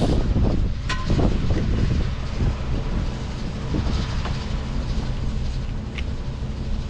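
Engine rumbling steadily at idle, with a few sharp metallic clinks from work on the hydrant, one about a second in and another near the end.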